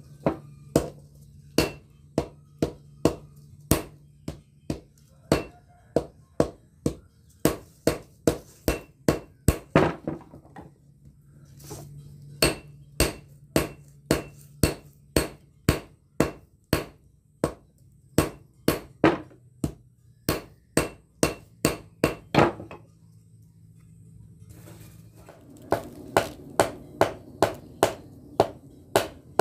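Blacksmith's hand hammer striking a red-hot pamor iron billet for a golok blade on an anvil, about two ringing blows a second, in long runs broken by two short pauses.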